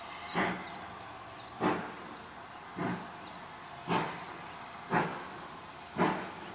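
Steam locomotive exhaust beats from a train working out of sight: distinct chuffs about one a second, gradually quickening.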